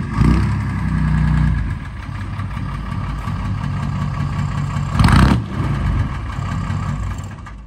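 The GMC DH478 Toro-Flow V6 diesel of a 1972 GMC Napco K5500 running at low speed as the truck creeps forward. A brief loud rush of noise comes about five seconds in, and the engine sound fades out near the end.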